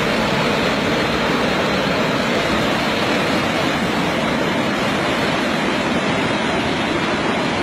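Steady rushing of fast-flowing river water, an even noise with no breaks.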